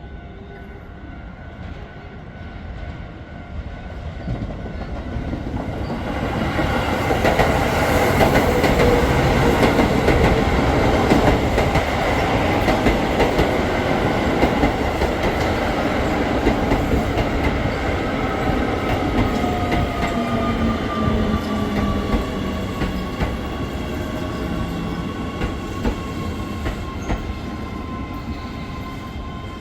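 Keio Line electric train running past, wheels clattering on the rails. The sound builds over the first several seconds, is loudest for a few seconds, then slowly eases, with a motor whine falling steadily in pitch through the second half.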